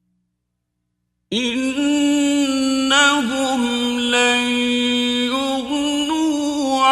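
A man's voice reciting the Quran in the melodic tajweed style, beginning after about a second of silence and chanting in long, held notes that bend in pitch.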